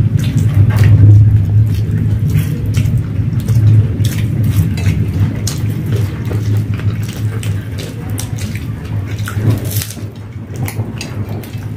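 Close-up eating sounds: crisp fuchka shells filled with yogurt being bitten and chewed, with many short crunches and wet squelches. Under them runs a steady low hum.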